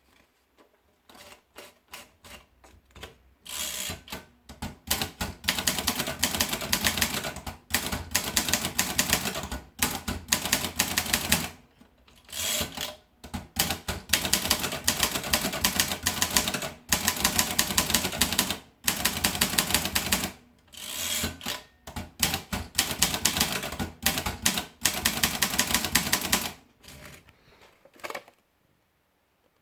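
Olympia Simplex typewriter being typed on: fast runs of key strikes in long bursts, with short breaks between runs, stopping shortly before the end.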